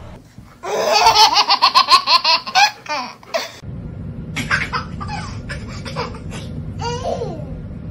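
A baby laughing: a long belly laugh of quick, rhythmic 'ha' pulses for about three seconds, then after a short break more short bursts of giggling, ending in a call that slides down in pitch near the end.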